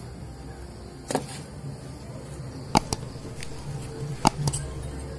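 Cauliflower leaves being sliced against a boti, the fixed curved Bengali kitchen blade: three sharp crisp cuts about a second and a half apart, with fainter rustling between.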